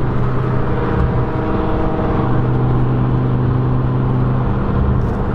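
Car engine running at a steady cruise with tyre and road noise, heard from inside the cabin while driving: a steady low hum.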